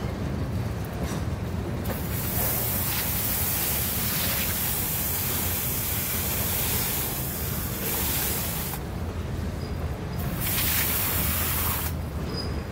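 Freight train passing at close range: a steady low rumble of the cars rolling over the rails, with a loud hiss that comes in about two seconds in, drops out near nine seconds, and returns briefly.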